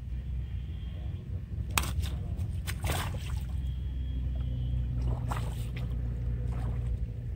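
Water splashing and dripping as a mesh net bag holding a caught tilapia is lifted and lowered back into shallow water, with splashes about two, three and five and a half seconds in, over a steady low rumble.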